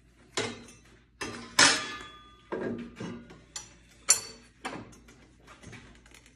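Wrench and scrap wood block being handled at a table saw, giving a series of about eight or nine knocks and metal clinks. The loudest clink, about a second and a half in, rings briefly, and another sharp one comes about four seconds in.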